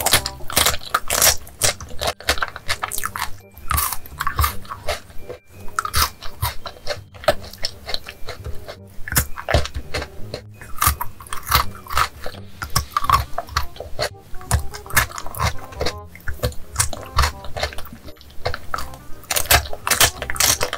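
Close-miked biting and chewing of chocolate bars and chocolate-covered wafer bars, with irregular crisp crunches several times a second.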